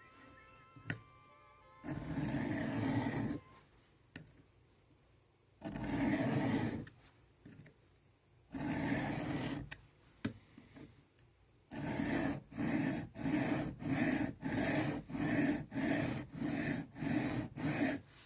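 Steel knife blade stroked across a diamond sharpening plate: three slow, long scraping passes, then about ten quicker, shorter strokes in an even rhythm, setting a new edge on a MagnaCut fixed blade.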